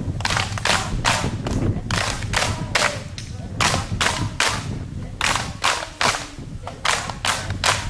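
A group of children clapping together in time, in runs of three or four sharp claps about three a second, with short pauses between runs.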